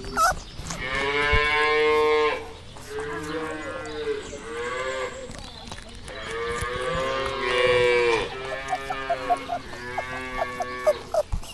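Cattle mooing: a series of long moos, one after another, the loudest about a second in and about six seconds in.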